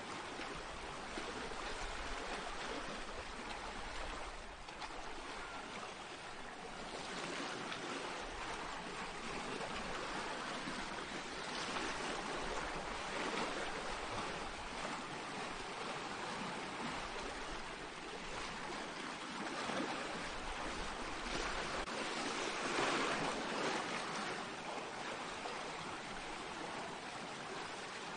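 Small sea waves breaking and washing over a pebble beach, a steady rush that swells and eases every few seconds.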